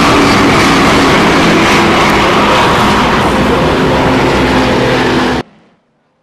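Supercharged SVT Lightning pickup's 5.4-litre V8 running hard at a steady engine speed, loud and dense with track noise. It cuts off abruptly about five and a half seconds in.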